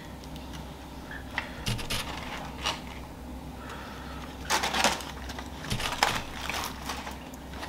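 Grilled banana-leaf wrapper and the aluminium foil under it rustling and crinkling as hands peel the leaf open, in scattered short bursts, the loudest a little past halfway, over a steady low hum.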